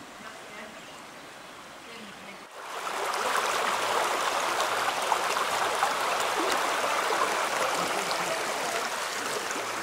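Steady rushing of river water, coming in suddenly about two and a half seconds in after a quiet start and holding steady.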